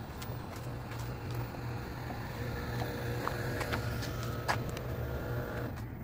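Steady low rumble of outdoor background noise, with faint steady tones in the middle and a few scattered faint clicks.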